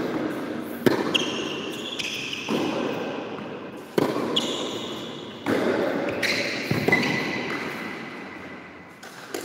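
Tennis rally on an indoor hard court: ball struck by the rackets and bouncing about every one and a half seconds, each hit echoing through the large hall, with a few short squeaks of shoes on the court.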